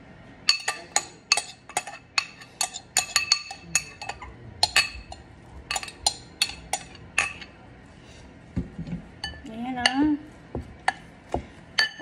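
Metal spoon clinking and scraping against a glass bowl while scooping diced raw fish out into another glass bowl. There is a quick run of sharp clinks for the first seven seconds or so, then a pause, then a few more clinks near the end.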